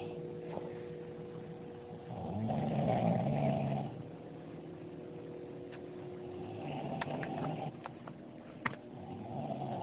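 Heavy snoring: three long, rough snoring breaths about three and a half seconds apart, with a short sharp click a little before the end.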